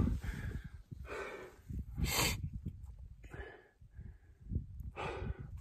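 A climber breathing hard from exertion at high altitude, with several heavy breaths about a second apart. A low rumble of wind and handling noise runs on the phone's microphone underneath.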